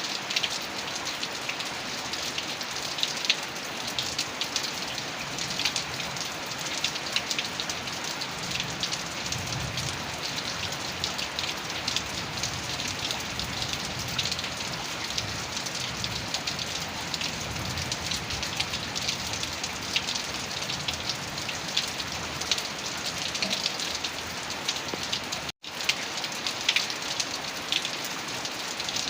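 Heavy rain falling steadily, with a dense patter of individual drops hitting a surface. A faint low rumble sits underneath in the middle stretch, and the sound cuts out for an instant near the end.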